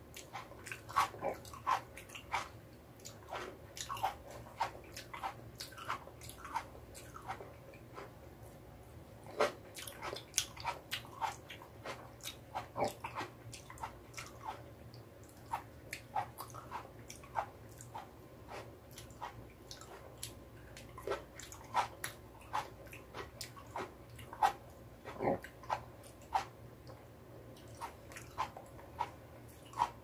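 Cherry tomatoes being bitten and chewed close to the microphone: an irregular run of short mouth clicks and smacks, several a second.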